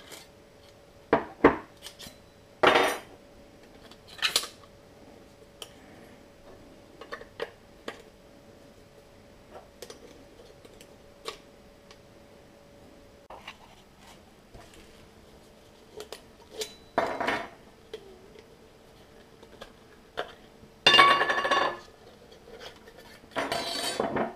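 A small tin-can stove and its thin sheet-metal windscreen being handled: scattered metal clicks and clinks, with a few longer metal scrapes near the end.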